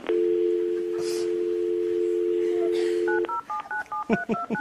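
Telephone dial tone, a steady two-note hum, sounds for about three seconds after a click. It then gives way to a quick run of touch-tone keypad beeps, five or six a second, as a number is dialled.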